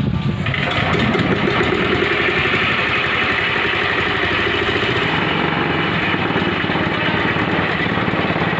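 Greaves 5 HP air-cooled single-cylinder diesel engine catching just after a rope pull and then running steadily with a fast, even diesel clatter.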